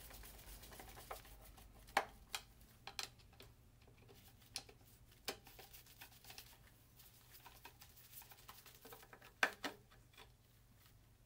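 Faint, scattered clicks and taps of a screwdriver and gloved hands working the distributor cap while its hold-down screws are tightened on an Atomic 4 engine. A few sharper clicks come about two seconds in and as a quick pair near the end.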